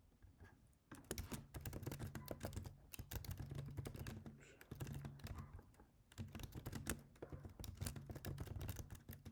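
Computer keyboard being typed on in fast, irregular runs of keystrokes, starting about a second in, with a few short pauses between runs.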